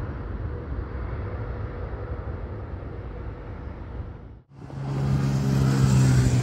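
A low, steady rumble that fades out at an abrupt cut about four and a half seconds in. It is followed by a motorcycle engine passing close, louder, with a steady low hum.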